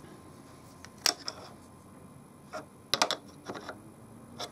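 A few scattered light clicks and taps from hands handling the steel cylinder block, its clamp and a marker pen on the lathe cross slide, with a small cluster of them about three seconds in.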